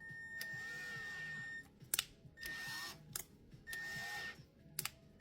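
Small electric drill motor driving a 2.5 mm tap into a die-cast metal post, whining in short on-off runs: one longer run, then shorter ones, with sharp clicks between them.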